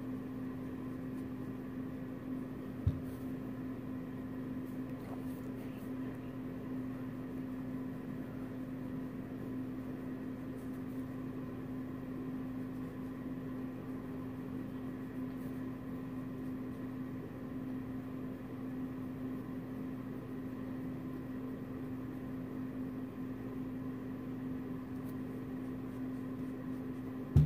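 A steady low electrical hum with room noise, and a single soft click about three seconds in.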